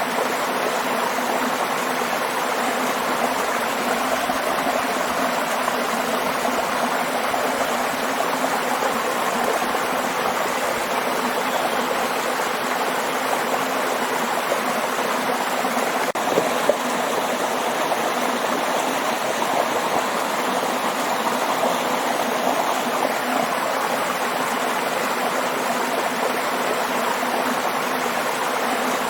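Waterfall: a steady, unbroken rush of falling water, with a brief slightly louder splash about halfway through.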